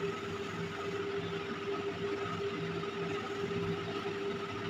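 A steady hum made of a constant tone over an even hiss, with no sudden sounds: background machine or room noise.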